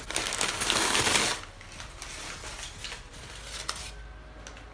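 Crumpled paper packing rustling and crinkling as it is pulled out of a shipping box, loudest for the first second or so, then lighter crackles.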